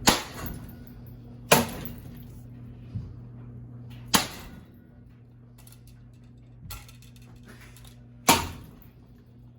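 Ceiling fan being smashed: four loud, sharp blows at uneven intervals, each ringing briefly, with a couple of lighter knocks between them. A steady low hum runs underneath.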